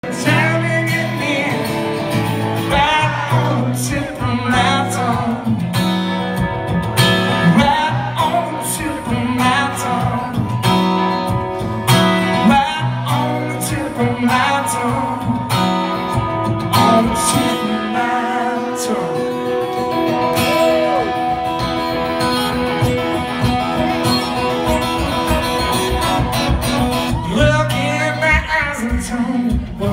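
Live solo performance: a man singing and playing guitar through a PA.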